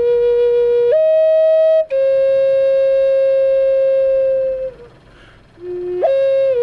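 Shamanic flute playing long, steady held notes. The note steps up about a second in and breaks off briefly, then a long note tails away into a pause for breath. Near the end a new phrase starts with a quick upward slide.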